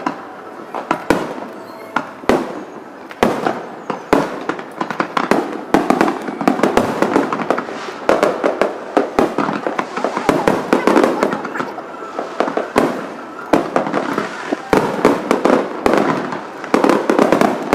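Aerial fireworks shells bursting in rapid, irregular succession: many sharp bangs over a dense, continuous crackle.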